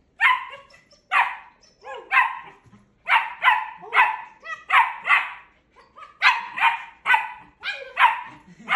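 Puppy barking over and over in short, high barks, about two a second.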